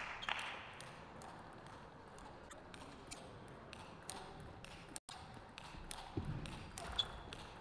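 Scattered light clicks of a table tennis ball being bounced and handled between points, over a faint steady hall hum, with a sharper click about seven seconds in. The sound cuts out for an instant about five seconds in.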